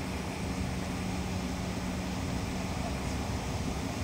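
Cabin noise of a Bombardier CRJ900 on the runway: a steady rumble from its rear-mounted turbofan engines as the jet rolls, with a steady low hum that fades near the end.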